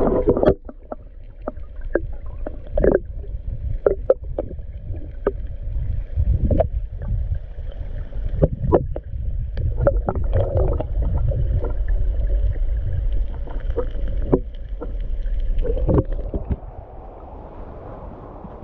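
Creek water heard with the camera submerged: a muffled, low rumble of flowing water with many irregular sharp clicks and knocks. The rumble drops away about sixteen seconds in.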